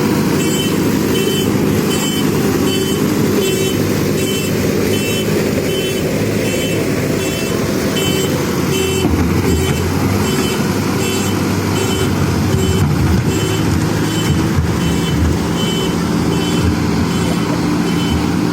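JCB backhoe loader's diesel engine running steadily, with a high reversing alarm beeping at an even pace of about one and a half beeps a second. The engine's pitch shifts a little about halfway through.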